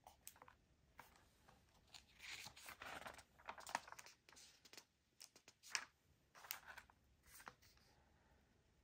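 Packaging being unwrapped by hand: irregular tearing and crinkling with a few sharp snaps, in short bursts.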